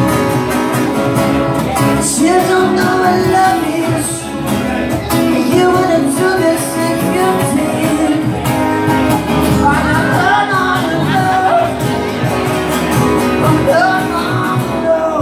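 Live acoustic band: strummed acoustic guitars under a man singing.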